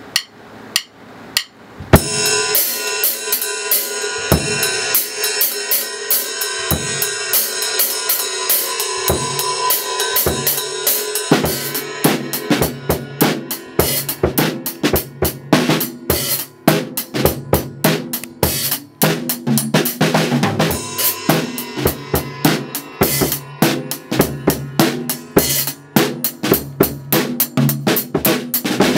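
Drum kit played as a beat: a few separate hits, then from about two seconds in a steady groove of snare, bass drum and ringing cymbals. It gets heavier, with more bass drum, partway through.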